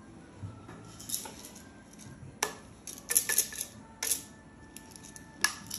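Metal podiatry instruments clinking and knocking together as they are handled, a string of sharp clicks with a faint metallic ring, loudest about three seconds in.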